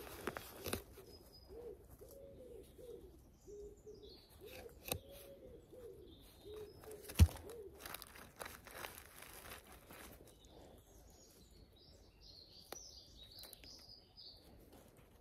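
Woodland birds: a low cooing call repeated for about the first half, and higher chirps later on. Scattered scrapes and clicks come from hand-trowel digging in soil, with one sharp knock about seven seconds in.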